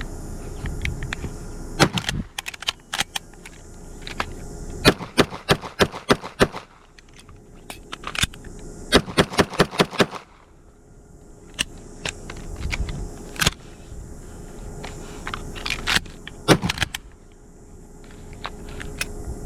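Gunfire from a 12-gauge shotgun and a 9mm pistol: scattered single shots and two quick strings of six or seven shots each, about four a second.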